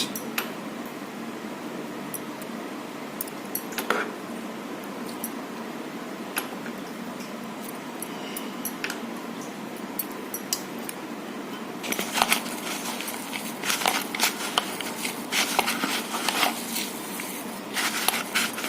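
A batter of chopped banana flower, gram flour and spices being mixed in a bowl: occasional small clicks at first, then a dense run of irregular squishing and clicking from about twelve seconds in, over a steady background hiss.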